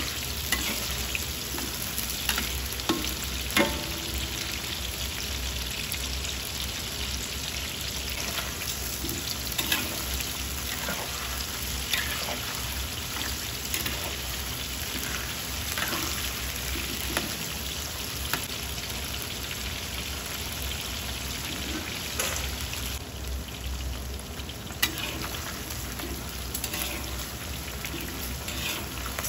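Coated pork pieces deep-frying in hot oil in a wok: a steady sizzle, broken by scattered clicks and scrapes of a spatula stirring against the wok.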